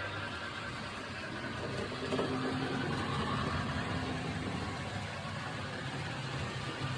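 HO-scale model train running on the layout: a steady, engine-like hum.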